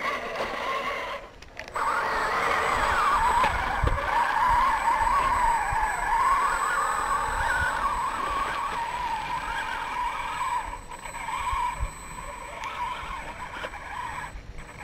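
Electric motor and gearbox of a radio-controlled Unimog U406 scale crawler whining as it climbs over rock. The pitch wavers up and down with throttle and load, and the whine grows quieter in the last few seconds.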